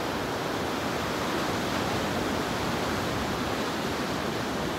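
Ocean surf breaking and washing onto a sandy beach, heard as a steady, even hiss with no breaks.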